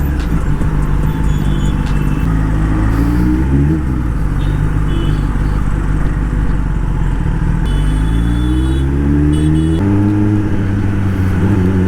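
Kawasaki ZX10R inline-four engine pulling through the gears under acceleration, with wind rush. The engine note climbs in pitch, then drops at a gear change about four seconds in and again about ten seconds in.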